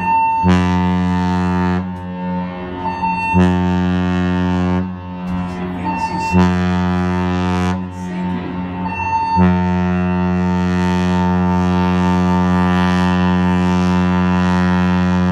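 Cruise ship's deep horn sounding the muster drill alarm: three short blasts about three seconds apart, then a long continuous blast starting about nine seconds in. This is the pattern of the general emergency signal of short blasts followed by one long one.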